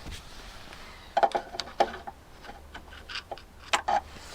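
Small sharp clicks and knocks of parts being handled inside a car door's lock mechanism, in two clusters, a second or so in and again near the end, over a low steady hum.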